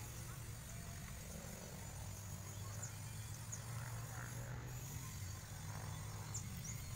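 A low, steady engine hum, like a motor idling, its pitch shifting slightly about five seconds in, with a few faint short high chirps over it.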